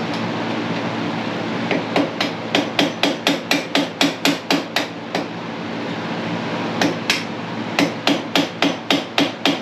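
Hammer striking a flathead screwdriver used as a drift to knock the rear CV shaft loose on a Yamaha Grizzly 700 ATV: quick sharp strikes about four a second, in two runs with a pause in the middle.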